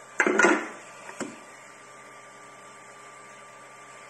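A short clattering bump of a hollow 3D-printed PLA figure being set down and handled on the 3D printer's bed, followed by a single light click about a second in, over a steady electrical hum.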